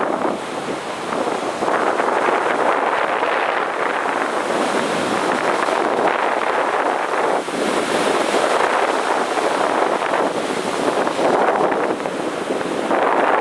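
Ocean surf breaking on a beach, a steady wash of waves that swells and eases every few seconds, with wind buffeting the microphone.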